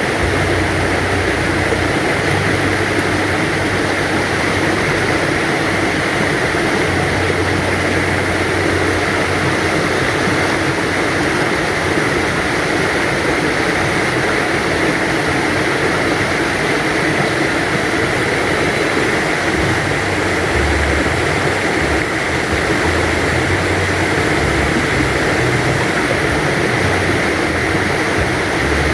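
A gently flowing river stream, its water rushing steadily at an even level.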